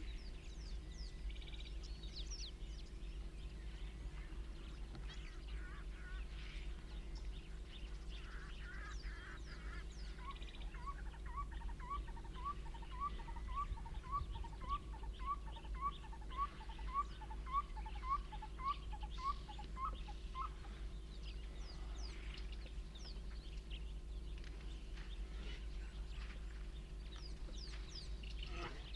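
A wild bird calls a long series of short, evenly spaced rising notes, about two a second for some ten seconds, over scattered high chirps from other birds and a steady low hum.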